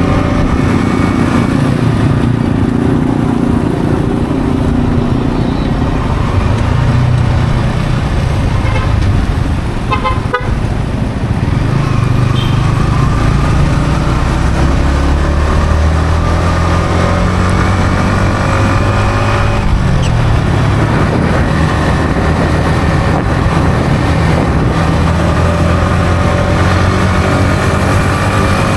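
Yamaha XSR155's single-cylinder engine through its stock exhaust, heard from the rider's seat while riding, its pitch falling and rising with throttle and gear changes and climbing steadily near the end as the bike accelerates. A short horn toot sounds about ten seconds in.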